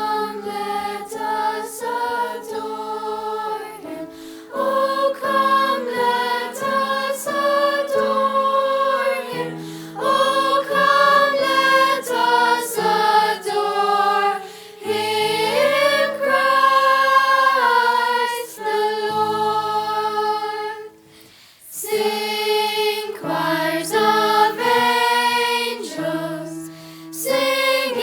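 Choir singing in several parts, phrase after phrase, with a brief break about 21 seconds in.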